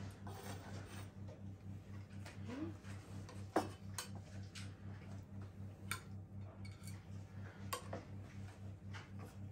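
Knife and carving fork working through a turkey crown on a wooden chopping board, giving a few sharp clicks as metal meets the board and a plate, the loudest about three and a half seconds in. Under it runs a low steady hum that pulses about four times a second.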